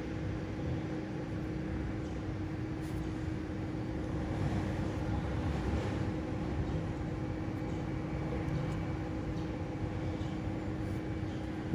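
Steady low background rumble with a constant hum underneath; no distinct knocks or clicks stand out.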